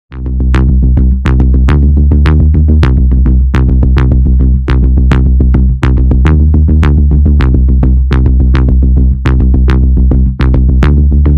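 Electronic music: a heavy synthesizer bass with a driving drum-machine beat, about three hits a second, kicking in suddenly after a moment of silence.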